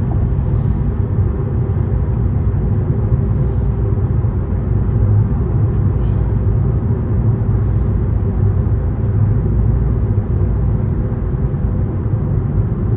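Steady low road rumble inside a Toyota's cabin at highway speed on a wet road, with a few short hisses.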